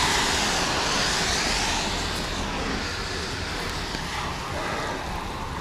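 A car passing on a wet road, the hiss of its tyres fading away as it goes.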